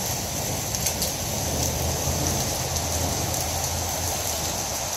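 Heavy rain falling steadily on pavement, a dense even hiss; the hail has given way to plain rain.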